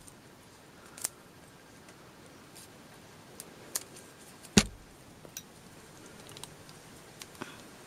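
Sparse small clicks and knocks as the electric spinning wheel's flyer shaft and flyer arms are handled and fitted together, with one louder knock a little past halfway.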